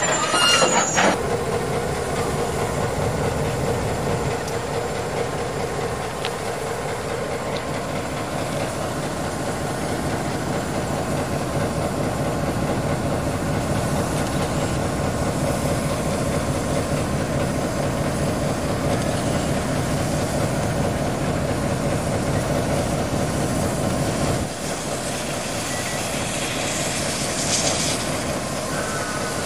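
Victorian Railways Y class diesel-electric locomotive idling steadily close by. Near the end a steam locomotive alongside lets off a hiss of steam.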